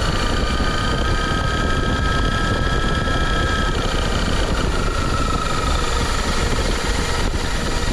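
Brushless electric motor of an RC car whining steadily over a constant rushing noise; the whine breaks off briefly about four seconds in, then returns.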